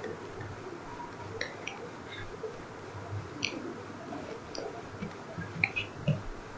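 Faint, scattered clicks and light taps from a stylus writing on a drawing tablet, a handful spread through and a few close together near the end, over steady low background hiss.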